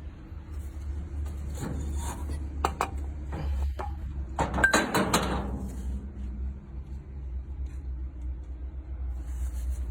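Engine running with a steady low rumble, while metal parts clank and knock several times, loudest in a cluster about halfway through.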